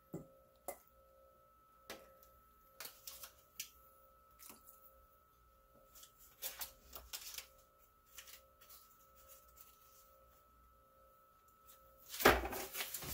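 Scattered light clicks and taps of a metal slotted spoon against a cast iron Dutch oven as things are lifted out of the broth, over a faint steady hum. A louder, noisier clatter comes about twelve seconds in.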